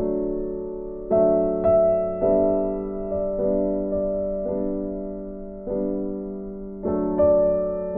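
Background piano music: slow notes and chords struck about once a second, each ringing on and fading away.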